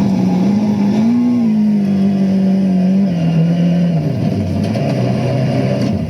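Rally car engine running at high, steady revs, then dropping in pitch in steps about three and four seconds in.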